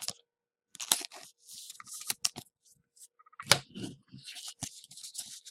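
Hockey trading cards being handled and slid against one another: short papery swishes and clicks, with a sharper snap about three and a half seconds in.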